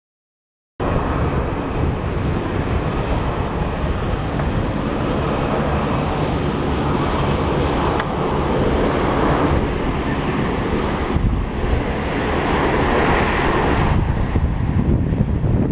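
Airbus A380 airliner's four turbofan engines heard loud and steady as it lands, a dense jet rumble and rush that cuts in suddenly about a second in.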